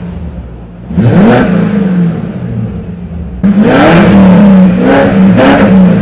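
BMW E39 540i's 4.4 V8 revved while parked in several throttle blips, one about a second in and then quick repeated blips from about three and a half seconds, through its current exhaust with a small cheap muffler.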